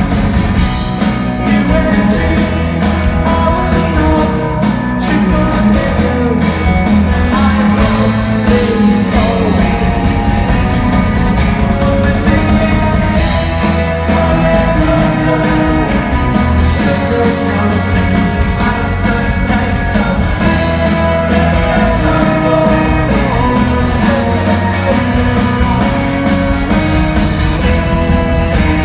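Live pop-rock band playing a song with a lead vocal over a steady drum beat.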